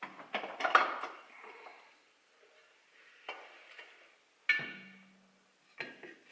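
Metal parts clinking and knocking as a Lambretta engine's magneto housing is pulled off its casing and handled. There is a clatter of several clicks at the start, then single sharp knocks about three, four and a half and six seconds in. The one at four and a half seconds is the loudest and rings briefly.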